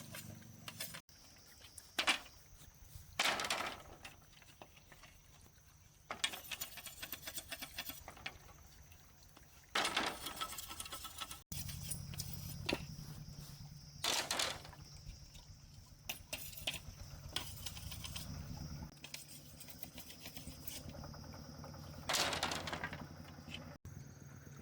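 Bamboo being handled and worked by hand: separate knocks, clatters and scrapes, with a stretch of fast rasping strokes partway through, broken up by abrupt cuts.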